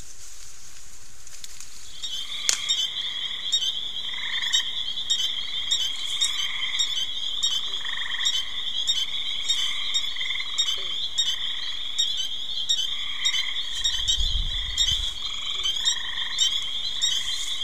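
Night chorus of frogs calling from the pond: short trilled calls repeated every second or so, over a steady high-pitched trill. The chorus starts about two and a half seconds in after a stretch of plain hiss, and a brief low rumble comes near the end.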